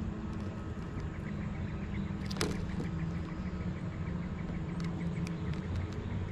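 A steady low mechanical hum from the bass boat, with a faint, even ticking and one sharp click about two and a half seconds in.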